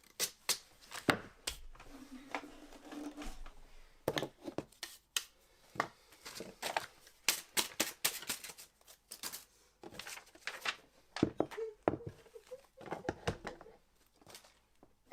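Hand finishing of a wooden hatchet handle: short, irregular scraping strokes on the wood, mixed with sharp clicks and knocks as the handle and tools are handled.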